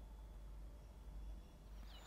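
Faint, steady low rumble from the nest-box camera's microphone, with no calls from the falcon chicks. Faint bird chirping begins just at the end.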